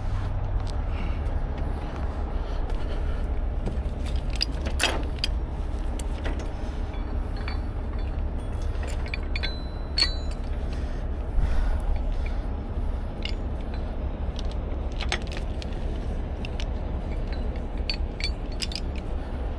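Chain and steel rigging hardware clinking and rattling as they are handled, with scattered sharp metallic clicks. A heavy truck engine runs steadily underneath as a low rumble.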